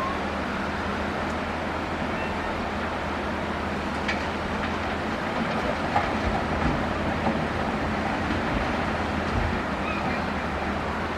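Excavator's diesel engine running steadily, with a few sharp clanks about four, six and seven seconds in.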